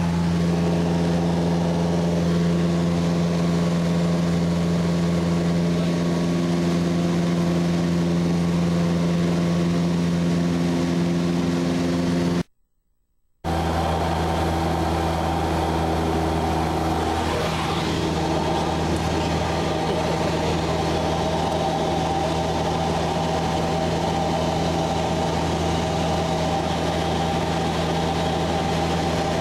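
Single-engine Cessna light aircraft's piston engine and propeller droning steadily, heard inside the cabin. The sound cuts out for about a second about halfway through, then resumes.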